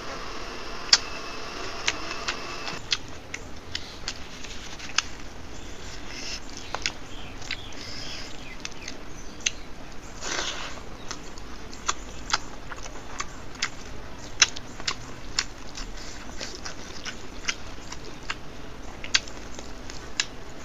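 Close-miked mukbang eating sounds: a person chewing a mouthful of rice and dal, with scattered wet mouth clicks and lip smacks.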